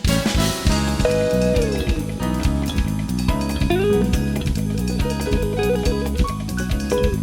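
Background music with electric guitar, bass and drum kit playing a steady beat, with sliding guitar notes.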